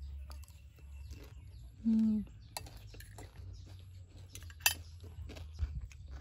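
Metal fork and spoon clinking and scraping against a ceramic plate while scooping up fried fish, with scattered clicks and one sharp clink about three-quarters of the way through. A short hummed voice sound comes about two seconds in.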